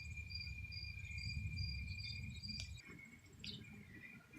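Insects singing outdoors: a steady shrill trill with a higher chirp repeating about twice a second, over a low rumble that drops away about three seconds in.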